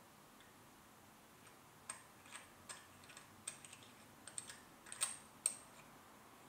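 A run of small, sharp clicks and ticks, irregular at several a second and loudest a little past the middle, as fingertips in finger cots work a watch's rose-gold case and glass display caseback.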